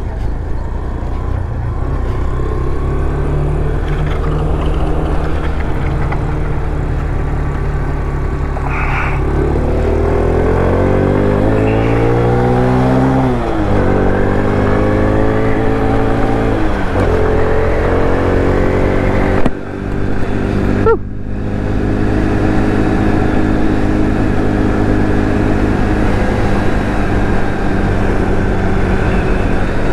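X-Pro Vader 125cc motorcycle's single-cylinder four-stroke engine running while ridden. Its pitch climbs and drops back sharply twice near the middle as it is taken up through the gears, and the sound briefly drops out about two-thirds through.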